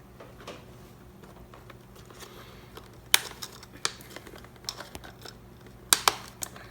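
Hands fitting an intercom speaker and cable into a motorcycle helmet's liner: light rustling with scattered small plastic clicks and taps, the sharpest about three seconds in and two more close together near the end.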